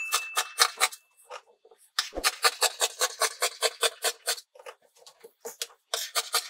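Dressmaking scissors snipping through knit fabric in quick runs of about five cuts a second, pausing briefly twice.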